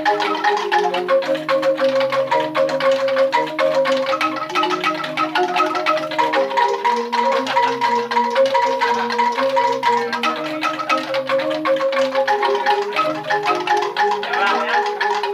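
A set of newly made bamboo angklung played alone, each tube shaken into a fast rattling tremolo. Several notes sound together as chords under a melody, with the notes changing every half second to a second.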